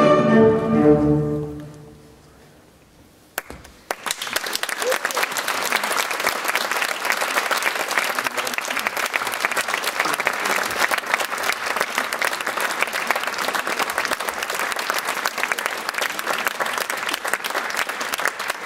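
The dance music ends, its last chord fading away over about two seconds. After a short hush, an audience breaks into steady applause about four seconds in.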